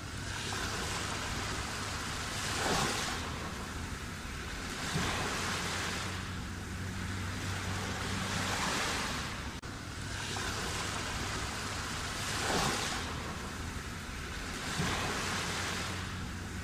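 Black Sea surf: waves breaking and washing in every few seconds, each one swelling up and falling away, with a faint steady low hum underneath.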